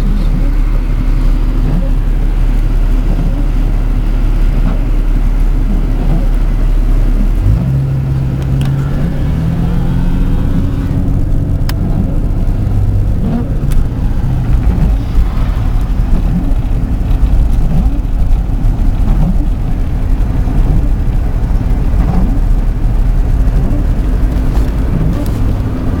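Car engine and road noise heard from inside a moving car, a steady low rumble; about eight seconds in the engine note rises as the car pulls away and then holds steady.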